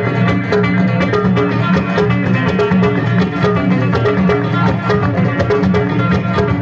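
A live Amazigh band playing through a PA, with plucked string instruments over bass and a steady beat.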